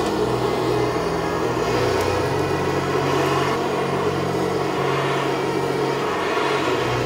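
Handheld gas blowtorch flame burning steadily, a constant rushing hiss, as it is played over pig skin to singe off the hairs.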